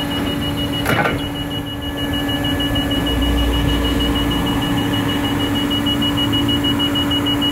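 Crown triple-mast forklift lowering its mast and carriage: a steady hum with a fast, even, high-pitched beeping alarm, a single click about a second in, and a low rumble coming up about three seconds in.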